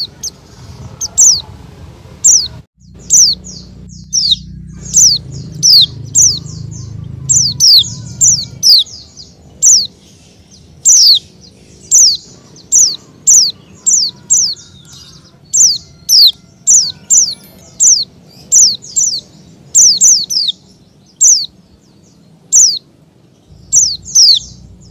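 A bird chirping over and over: short, high notes that fall in pitch, about two a second.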